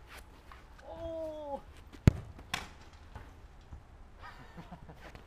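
A football kicked hard once about two seconds in, a sharp single strike, followed about half a second later by a weaker knock of the ball. Shortly before the kick a person makes a short held vocal call.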